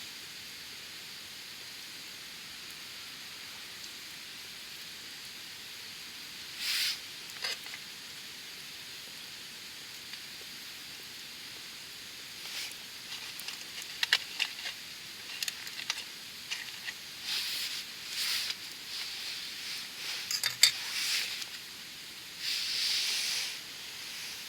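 Open wood campfire burning on bare ground: a steady hiss, with sharp crackles and pops that grow frequent from about halfway through and a few short, louder hisses.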